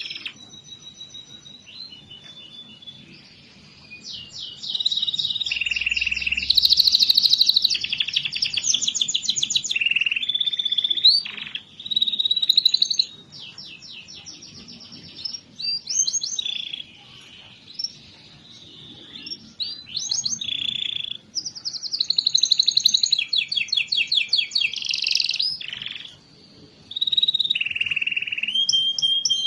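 Domestic canary singing a long, fast song of rapid trills and rolls, phrase after phrase with short pauses between. This is the kind of lively song played to coax quiet canaries into singing.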